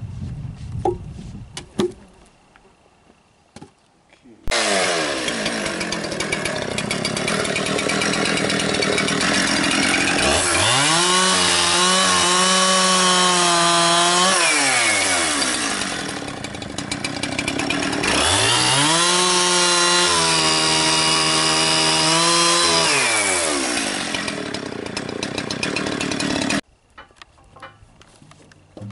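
A few sharp knocks, then a two-stroke chainsaw running at high revs and bucking through logs twice. Its engine pitch drops and holds lower as the bar loads up in each cut, then climbs back up between cuts.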